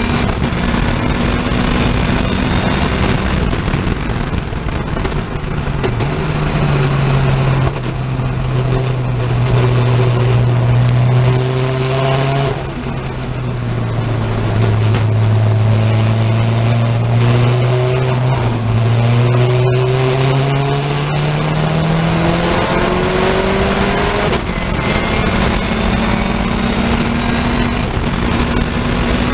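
A racing saloon car's engine heard from inside the cockpit. It runs hard at speed, drops in pitch as the car brakes and shifts down for a corner, then climbs again as it accelerates back up through the gears, with a whine rising alongside it.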